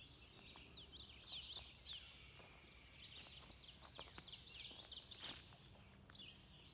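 Small birds chirping faintly outdoors: many quick, high chirps that rise and fall, busiest in the first couple of seconds.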